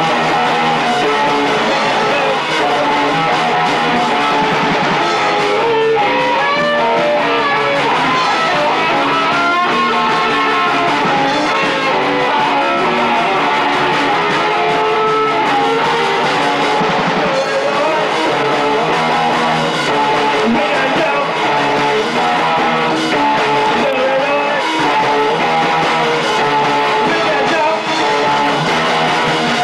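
Punk rock band playing loud and continuous, with electric guitars and drums.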